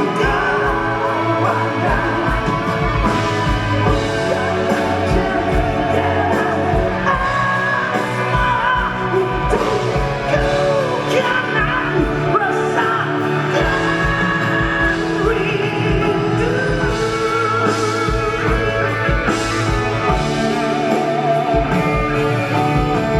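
Band playing a pop-rock song, with a singer holding long, wavering notes over a steady drum beat and guitar.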